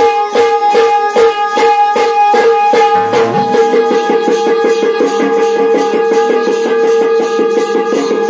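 Instrumental folk music from a Shakti-wale nach troupe, with no singing. Held steady tones sound over a regular beat of about two strokes a second, and the beat roughly doubles in pace about three seconds in.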